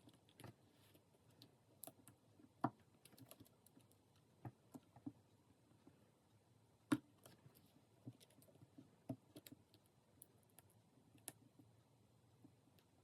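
Faint, scattered small clicks and taps of the plastic screen bezel molding being pried off a folding phone, with two sharper clicks, one about two and a half seconds in and one about seven seconds in.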